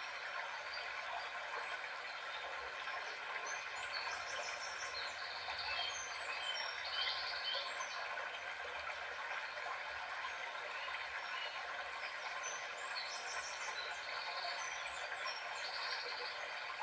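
Recorded nature ambience: birds chirping in two short spells over a steady outdoor hiss.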